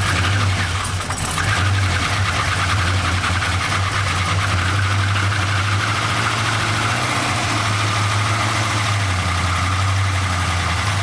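Holden LS1 5.7-litre V8 with a new Comp Cams camshaft idling steadily on its first run after the cam swap, with some rattling from the top end as fresh oil is pumped through.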